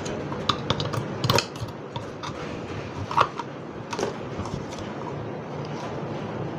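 Screwdriver clicking and scraping against the inside of a stainless steel blender cup, a scatter of irregular metallic taps with the loudest about three seconds in, over a steady low hum.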